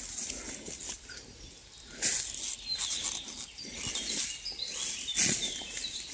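Footsteps rustling and crackling through dry leaf litter and twigs on the forest floor, with faint bird chirps in the background.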